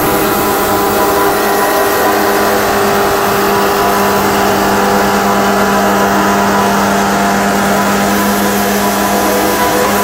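Wood-Mizer bandsaw sawmill running, its saw head travelling along a log with the band blade cutting: a steady, loud machine hum with a constant tone.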